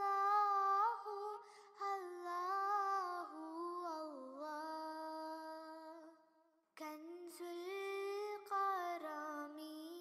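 Background music from an Urdu devotional song: a high voice singing long, drawn-out notes that bend and waver. The singing drops out briefly about two thirds of the way through, then resumes.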